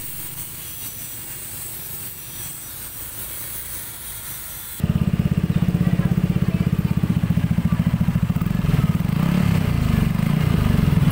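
Yamaha NMAX 2020 scooter's single-cylinder engine starting suddenly about five seconds in, then idling with a loud, steady, rapid pulse through a newly fitted F2Racing stainless-steel aftermarket exhaust.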